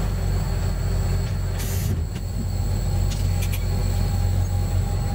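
KTR700-series diesel railcar's engine running with a steady low drone. A short hiss comes about one and a half seconds in, and a few light clicks follow a couple of seconds later.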